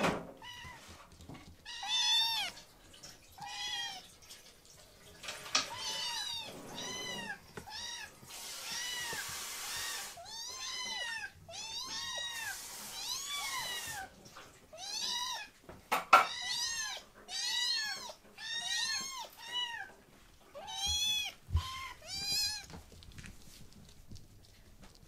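Young kittens meowing over and over, short high arching mews, one to three a second. Twice in the middle a steady hiss runs for a second or two.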